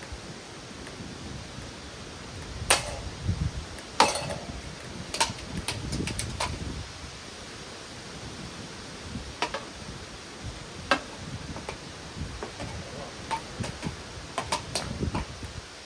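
Sharp, irregular knocks and clicks from the metal parts of an old ceiling fan being taken apart with tools, over a steady hiss. The two loudest knocks come about 3 and 4 seconds in, and smaller clicks are scattered through the rest.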